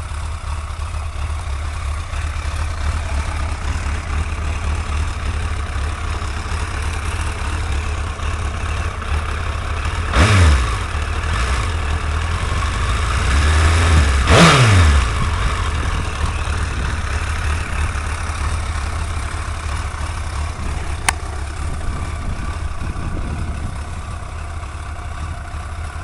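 Suzuki GSX-R1100's inline-four engine idling steadily, with no exhaust tick now that the leaking exhaust seal behind it has been cured. The throttle is blipped twice, about ten seconds in and again four seconds later, the revs rising and falling back to idle, and there is a single sharp click later on.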